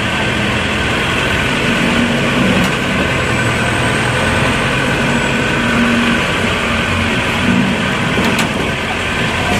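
Safari tour vehicle's engine running steadily as it drives, heard from on board: a continuous low engine drone with road noise.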